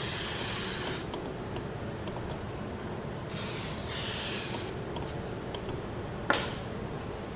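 Aerosol can of white lithium grease spraying in two hisses: one that stops about a second in, and a second lasting about a second and a half a couple of seconds later. A single sharp click follows near the end.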